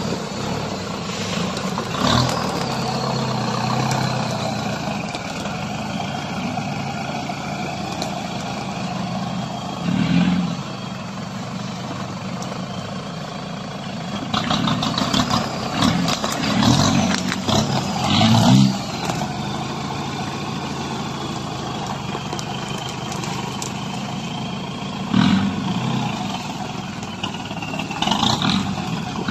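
Nissan Big M pickup on large mud tyres crawling through thick brush: its engine runs steadily with several short bursts of revving.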